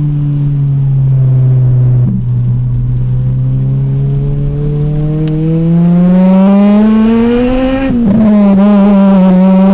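Acura RSX four-cylinder engine through its aftermarket exhaust, running at a steady low note, then rising in pitch as it revs up. Near the end the pitch dips sharply, then holds steady at a higher note.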